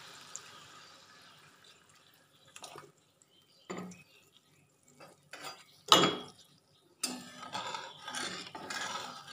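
Water poured into a karahi trails off. Then a metal spatula clinks against the pan several times, loudest about six seconds in, and scrapes for the last two seconds as it stirs the spice paste and water.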